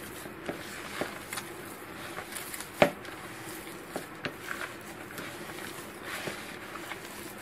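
A hand mashing and mixing potato filling in a plastic bowl: irregular soft taps and squishes, with one sharper knock about three seconds in.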